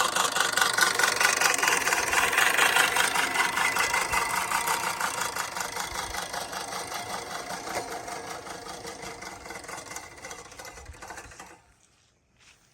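Sun Joe lawn mower with a grass bagger running steadily. It grows fainter over several seconds, then cuts off suddenly near the end as the motor is switched off.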